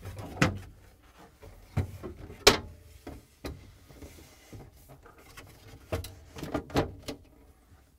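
Glass refrigerator shelf in a plastic frame being slid in and seated on its supports, knocking and clacking against the plastic liner: a string of sharp knocks, the loudest about two and a half seconds in, with a quick cluster near the end.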